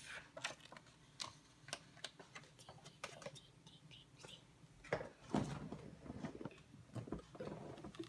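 Pages of a hardcover picture book being turned and smoothed flat by hand: faint paper rustling with scattered light clicks and taps, a little louder about five seconds in.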